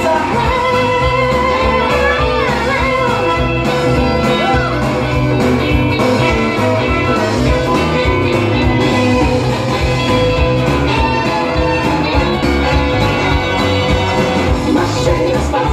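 A pop-rock song with a singing voice and guitar, played from a vinyl LP on a turntable.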